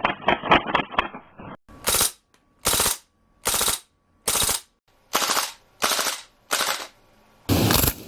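CO2 gas-blowback airsoft guns firing on full auto: a rapid string of shots at about seven a second for the first second and a half, then a series of short bursts, each about a third of a second long, coming a little faster than once a second.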